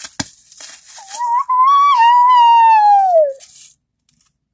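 A child's loud, high-pitched squeal held for about two seconds, wavering at first and then sliding down in pitch before it stops, just after a sharp click.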